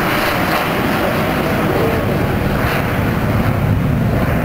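Avro Vulcan XH558's four Rolls-Royce Olympus turbojets running as the bomber flies by: a loud, steady jet rush, with the low rumble building near the end.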